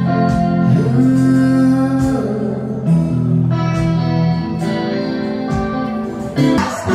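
Live band playing: guitar holding long, sustained notes over bass and a drum beat. Near the end the sound changes abruptly to busier, noisier music.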